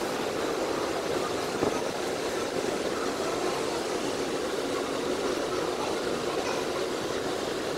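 Jet engines of a twin-engine wide-body airliner taxiing at low thrust, a steady rushing rumble that holds level throughout, with one brief click about one and a half seconds in.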